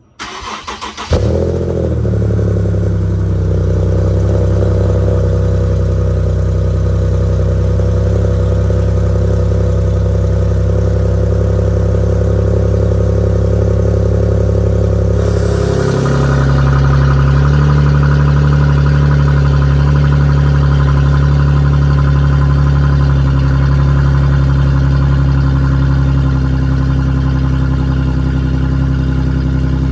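Infiniti G37's 3.7-litre V6 starting about a second in with a quick flare of revs, then idling steadily through an aftermarket exhaust. About halfway through, the electronically controlled exhaust cutout valve opens and the idle turns louder and more aggressive in tone, close to straight-piped.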